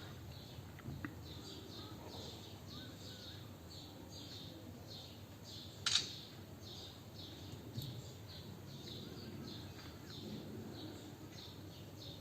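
Faint bird chirping in the background, short high chirps repeating about twice a second, with a sharp click about six seconds in.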